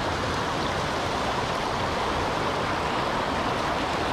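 Shallow river water rushing and splashing over rocks: a steady rushing noise.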